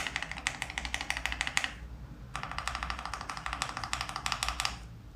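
Long keys of a mechanical keyboard fitted with 7 mm-tall Honeybee XDA-profile PBT keycaps, pressed in quick repeated strokes. Two runs of fast clacking keystrokes come with a short pause about two seconds in.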